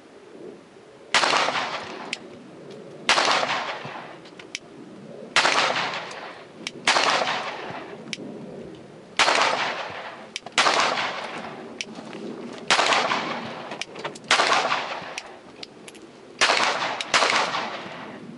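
Glock 26 9mm pistol fired about ten times at an uneven pace, the shots one to two seconds apart with two in quick succession near the end, each followed by a short echoing tail.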